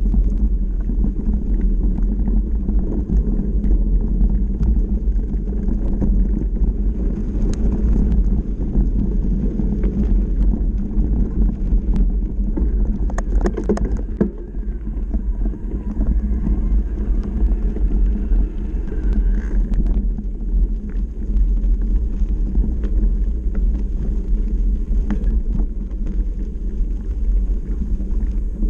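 Wind rumbling on the microphone of a mountain bike riding fast down a dirt trail, mixed with the tyres rolling on the dirt and scattered knocks and rattles from bumps, a cluster of them about halfway through.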